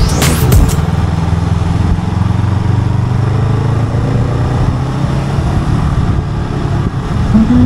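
A motor vehicle's engine runs steadily at road speed, with road and wind noise; its note rises gently about halfway through. A music track cuts off in the first second.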